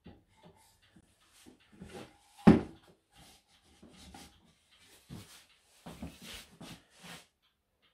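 Plywood parts of a home-made clock test stand being handled and fitted together: light knocks and rubbing of wood on wood, with one sharp, loud knock about two and a half seconds in and a short run of knocks near the end.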